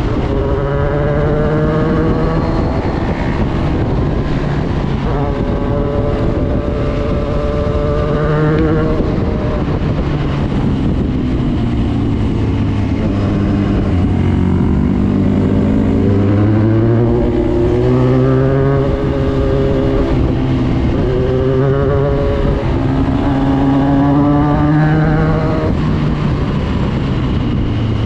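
Motorcycle engine under way, its pitch climbing and then dropping several times as the rider accelerates and shifts through the gears. Heavy wind rush over the microphone runs underneath.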